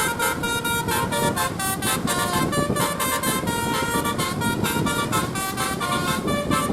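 Telolet basuri bus horn, a multi-note melody horn with roof-mounted trumpets, playing a quick tune of short notes that change pitch several times a second, over a low rumble.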